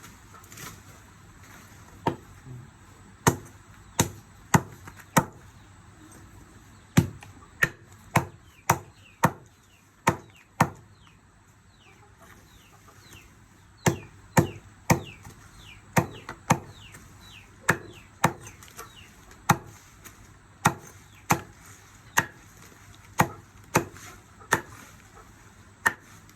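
Medicinal herbs being chopped by hand, with sharp chopping strokes about one or two a second in two runs and a pause of a few seconds near the middle. Faint high falling chirps, like chicks peeping, sound between the strokes.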